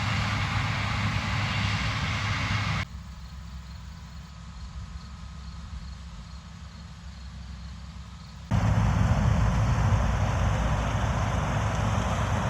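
Corn harvester running steadily in the field. The sound drops away abruptly about three seconds in and comes back just as abruptly, louder, past the middle.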